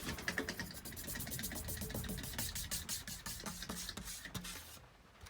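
Hunter Infiniti ceiling fan coasting down after being switched off, making a rapid, even ticking over a low hum that fades and stops just before the end.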